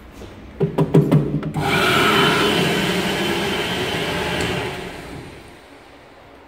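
Sensor-activated hand dryer set into the wall, started by a hand waved under it: a few knocks as its motor starts, then a loud steady rush of air with a high tone in it for about three seconds, fading away as it stops.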